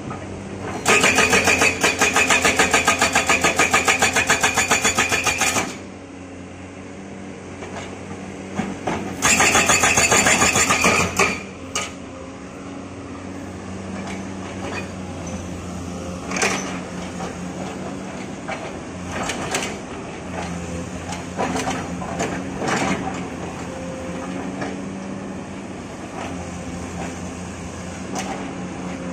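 Hydraulic breaker on an XCMG XE215C excavator hammering rock in two bursts of rapid, even blows, the first about a second in and lasting nearly five seconds, the second shorter a few seconds later. Underneath and afterwards the excavator's diesel engine runs steadily, with scattered knocks and clanks of steel and stone.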